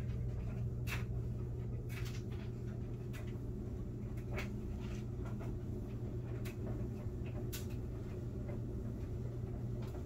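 A steady low hum with a few faint, scattered clicks, roughly one every second or two.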